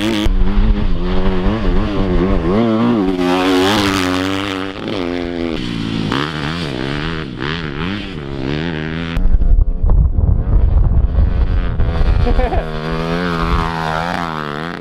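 Dirt bike engines riding through sand, the revs rising and falling again and again as the throttle is worked. About nine seconds in, the sound turns for a few seconds into a loud, deep rumble before the rising and falling engine note returns.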